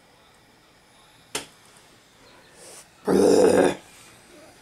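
A sharp single click about a second in, then near the end a loud, short grunt-like vocal sound lasting under a second.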